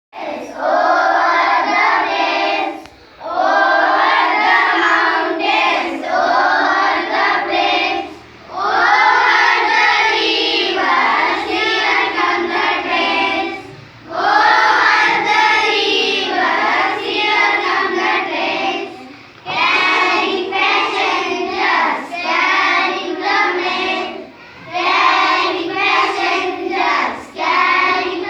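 A group of young schoolchildren singing a poem together in unison. They go phrase by phrase, each phrase about five seconds long, with a short break between lines.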